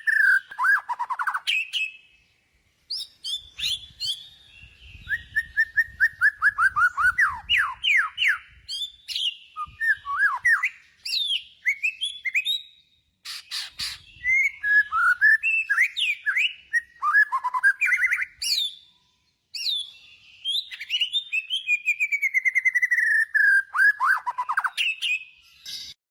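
A songbird singing in phrases of quick repeated whistled notes that slide down in pitch, mixed with fast trills. Five phrases are separated by short silences.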